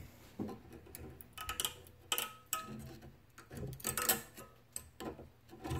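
Flat-blade tool prying the old stainless steel pad clips off a brake caliper bracket held in a bench vise: scattered light metal clicks and scrapes, two of them with a brief ring about two seconds in.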